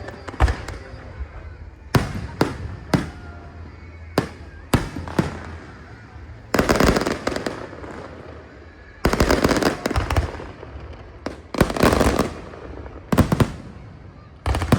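Aerial fireworks exploding. Single sharp bangs come every half second to second in the first few seconds, followed by several louder crackling bursts, each lasting up to about a second.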